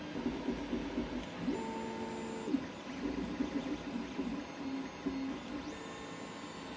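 Creality CR-X 3D printer's stepper motors whining as the print head moves, the pitch shifting quickly while it prints. Twice, about a second and a half in and again near the end, a longer steady tone rises, holds and falls as the head makes a faster move.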